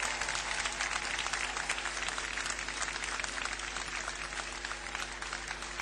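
Large crowd applauding, many hands clapping together, easing off a little toward the end.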